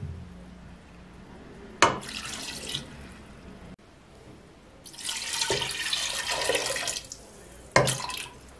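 Liquid poured into a stainless steel pot of raw chicken gizzards: a short splash of vinegar about two seconds in, then water poured from a glass jug for about two seconds, with a last splash near the end.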